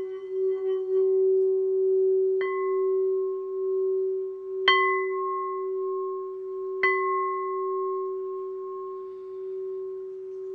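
Tibetan singing bowl ringing on one steady tone. The wavering sound of the wooden stick rubbing the rim stops about a second in, and the bowl is then struck lightly three times, about two seconds apart, each strike bringing out brighter overtones. The ring slowly fades.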